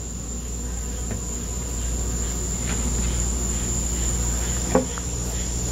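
Steady, high-pitched insect chorus running on without a break, with a couple of faint knocks as the hive covers are lifted off.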